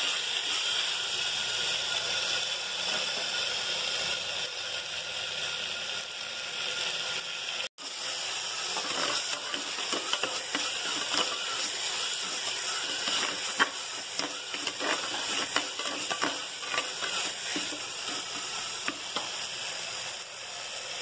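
Shallots and tomato frying in oil in an earthenware pot, sizzling steadily. From about eight seconds in, a spatula scrapes and knocks against the pot as the mixture is stirred, in many short irregular strokes.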